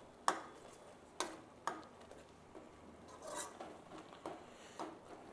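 Metal spoon stirring thick beetroot halwa cooking in ghee in a steel pan, clicking against the pan about five times at uneven intervals.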